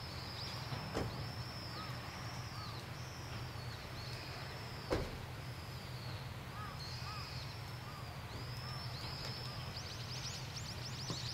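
Akechi 10-type diesel railcar's engine running with a steady low hum as the car creeps forward, with birds chirping high above it. A sharp knock sounds about 1 s in and a louder one about 5 s in.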